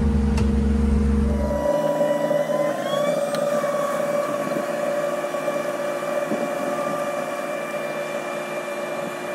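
Meridian 341 motor yacht's engines running: a deep steady drone at the helm that cuts off after about a second and a half, then a steady engine whine heard from the dock that rises briefly in pitch about three seconds in as the boat gets under way.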